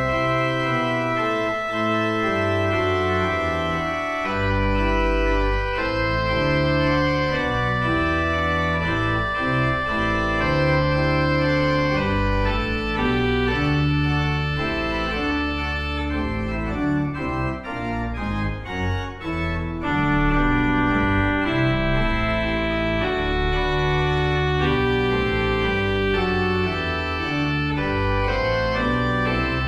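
Church organ playing the postlude: full held chords that change every second or so over deep bass notes, thinning briefly just past the middle.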